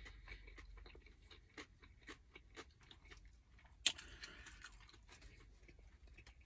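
Close-up chewing of a sandwich, soft wet mouth clicks about twice a second. About four seconds in comes one sharp loud click, followed by a brief rustle.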